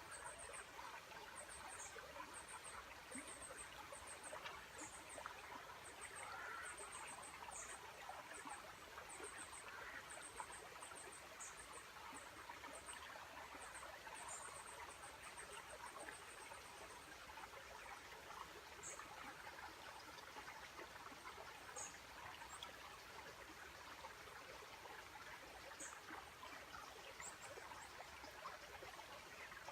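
Faint, steady rushing of a waterfall, with runs of quick high-pitched chirps that come often in the first half and only now and then later.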